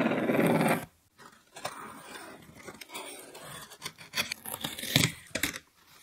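A loud rushing noise that cuts off abruptly under a second in, then a craft knife slicing through clear packing tape on a cardboard box, with scraping and crackling, and the cardboard flaps folding open near the end.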